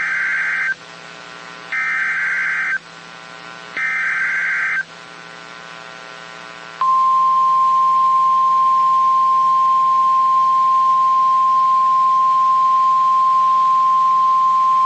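NOAA Weather Radio sending the three bursts of the EAS (SAME) digital header, each a harsh buzzing data squawk about a second long and two seconds apart. About seven seconds in, the steady single-pitch 1050 Hz weather radio warning alarm tone follows, the signal that a warning is about to be read.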